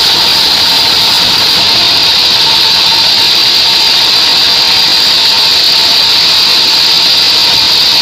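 Band sawmill cutting through a mahogany cant: a loud, steady sawing noise with a constant high hiss and a faint steady tone, unbroken throughout.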